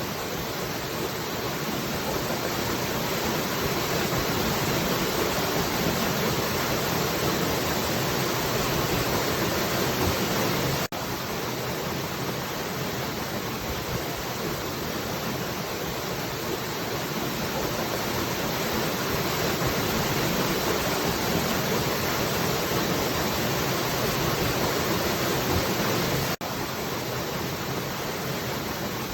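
Falling water rushing steadily, a continuous even hiss. It cuts out for an instant twice, about 11 seconds and about 26 seconds in, then carries on a little quieter and swells back.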